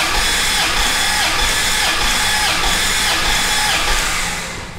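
Starter cranking a 5.9L (360) Magnum V8 with its spark plugs removed, spinning it over without firing for a compression test on one cylinder. It is a steady, rhythmic whir that stops near the end.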